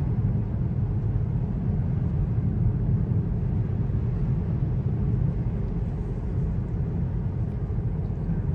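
Steady low rumble of a 2022 Honda Accord 2.0T's turbocharged four-cylinder and tyres on a snowy road, heard from inside the cabin while driving.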